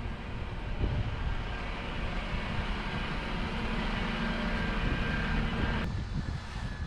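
Steady rolling noise from a bicycle ride: tyres on a path with low wind rumble on the microphone. The higher hiss cuts off suddenly near the end.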